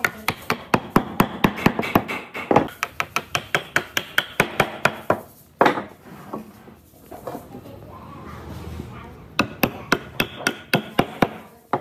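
Rapid hammer blows on wood, about five a second for the first five seconds, then a single heavy knock and, near the end, another quick run of blows: pine joints of a frame being knocked together.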